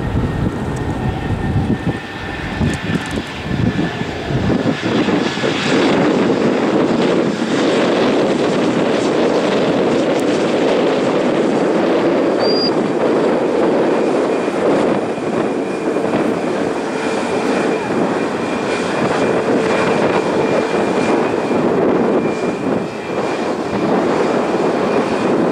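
Boeing 737-8 MAX's two CFM LEAP-1B turbofan engines running at high power as the jet rolls along the runway. It is a loud, steady jet noise that swells about five seconds in and then holds, with a faint high whine over it later on.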